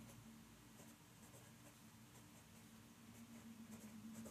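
A pencil writing letters on lined notebook paper: faint, short scratching strokes, one after another.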